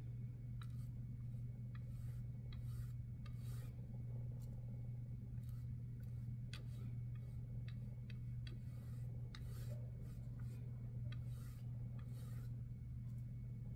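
Flat bristle paintbrush stroking acrylic paint across a flat plaque: short scratchy swishes about once a second, with small sharp clicks here and there. A steady low hum runs underneath.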